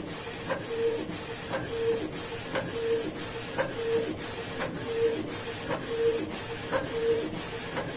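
Canon Pixma MG2570S inkjet printer printing a page: a short whirring whine repeats about once a second as the print head carriage shuttles across, with light clicks in between.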